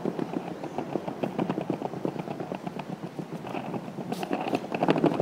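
Skateboard wheels rolling over a tiled stone pavement: a steady rumble broken by rapid clicks as the wheels cross the tile joints.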